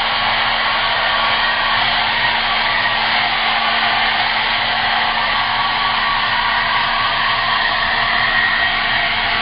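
Hair dryer running steadily: a rush of air over a constant low hum.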